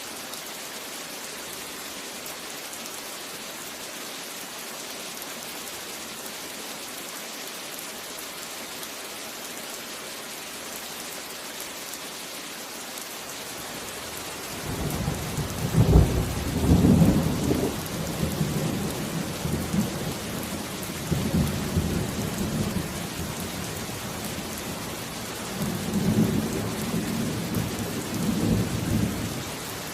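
Steady rain, with thunder rolling in about halfway through: a loud clap, then a long rumble that swells again near the end.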